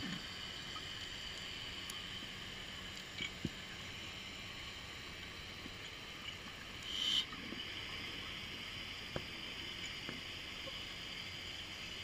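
Underwater ambience picked up by an underwater camera: a steady, faint hiss with a few light clicks and one short burst of hiss about seven seconds in.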